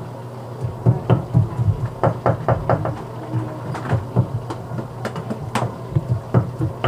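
A run of irregular sharp knocks and taps, at times several a second, over a low steady hum.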